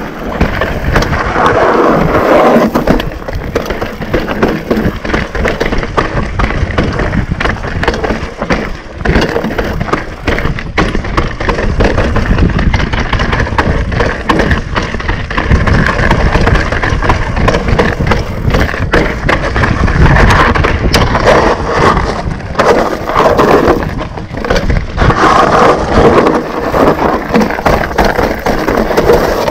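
Mountain bike riding fast down a rocky gravel trail: tyres crunching over loose stones and the bike rattling and knocking continuously over bumps.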